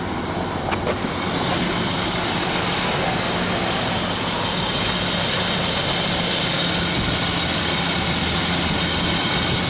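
A 1995 BMW 525i's inline-six engine idling steadily. Its rough, slightly high idle comes from a vacuum leak through a cracked air intake hose between the airflow meter and the throttle. Two light clicks come in the first second, and after about a second the engine sound turns louder and brighter.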